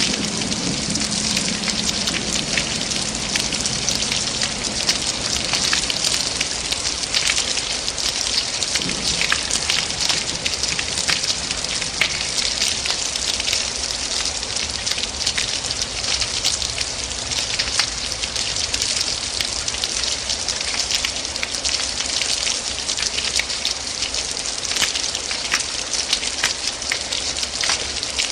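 Steady heavy rain, a dense hiss with many individual drops pattering and tapping on a surface. A low rumble fades out in the first couple of seconds.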